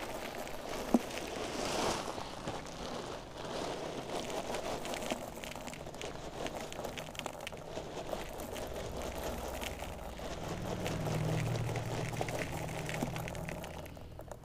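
Caustic soda flakes poured from a plastic sack into a plastic bucket: a light, continuous patter of falling flakes with the sack crinkling, and a sharp click about a second in. A low hum joins in for a few seconds from about ten seconds in.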